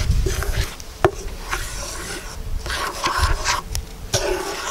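Wooden spatula scraping and stirring thin tomato barbecue sauce in a non-stick frying pan, in a run of irregular scraping strokes, with a sharp knock about a second in.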